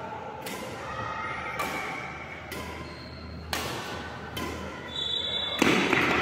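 Badminton rally: sharp racket strikes on a shuttlecock about once a second, each ringing briefly in the hall, with the loudest hit near the end.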